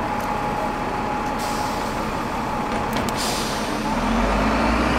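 City street traffic noise, with the low engine rumble of a heavy vehicle such as a bus or truck growing louder near the end.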